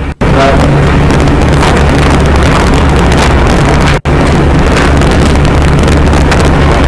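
Loud, steady rushing noise over a low hum, cutting out abruptly for a split second twice, about four seconds apart.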